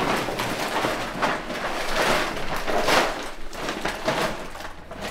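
Plastic shopping bag rustling and crinkling in a steady run of handling, swelling about once a second, as groceries are unpacked onto a kitchen counter.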